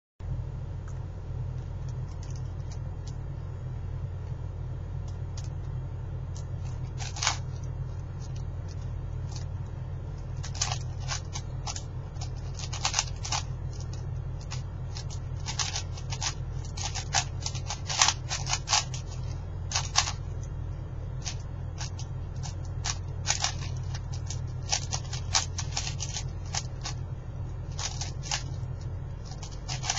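A 4x4x4 speedcube being turned fast by hand: its plastic layers click and clack in quick irregular runs, a few turns at first and then dense flurries, over a steady low hum.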